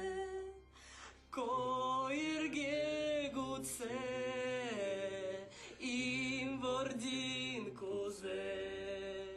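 Unaccompanied voices singing a slow liturgical chant for a baptism, with long held, wavering notes. It breaks off briefly about a second in and again midway, and closes on a sung "Amen".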